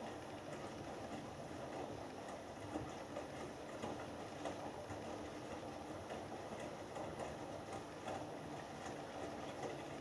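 Hoover Dynamic Next washing machine tumbling wet laundry during the main wash of a cotton cycle: the drum turning steadily, with water sloshing and the load falling over and over.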